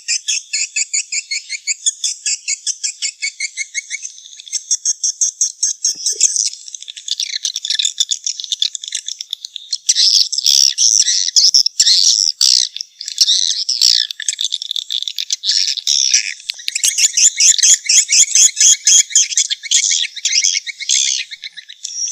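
Edible-nest swiftlets calling: rapid trains of high, buzzy twittering chirps that repeat without pause and grow denser and more overlapping about halfway through. This is the kind of swiftlet call played in swiftlet houses to lure the birds in to nest.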